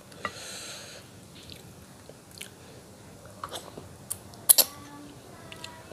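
Close-up eating sounds of curried pangasius (patin) fish head eaten by hand: wet squishing as fingers pull the flesh apart, then chewing and sucking on the meat and bones with several sharp smacks, the loudest about four and a half seconds in.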